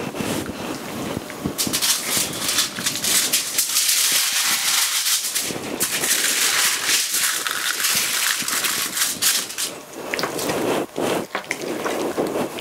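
Aluminium foil crinkling and crackling as raw lamb is pressed and spread out flat on it, a dense run of crackles that thins out near the end.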